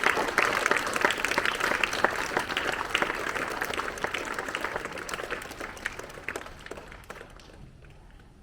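An assembly audience applauding, dense at first, then thinning out and dying away about seven seconds in.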